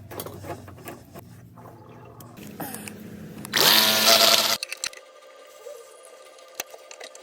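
A low steady hum, then a power tool's motor spins up with a rising whine and runs loudly for about a second past the middle before stopping abruptly. A few faint ticks follow.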